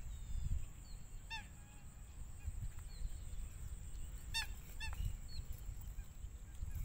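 Wind rumbling on the microphone at an open lakeside, with a bird calling briefly three times: once about a second and a half in and twice in quick succession past the middle.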